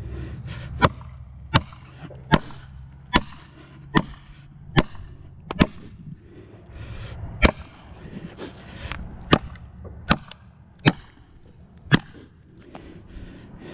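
Felling wedges being hammered into the back cut of a tree: about a dozen sharp ringing strikes, roughly one every 0.8 seconds with a short pause about halfway. A low steady rumble runs underneath in the first half.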